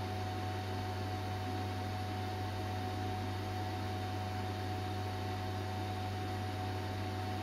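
Metcal HCT2-120 hot air rework station's air pump running steadily, blowing air through the handpiece in its stand to cool it after the heater has switched off: a low hum with a thin higher tone over a steady hiss of air.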